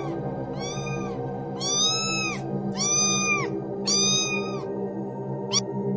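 A kitten meowing over and over: five drawn-out, arching meows about a second apart, then a short one near the end, over background music.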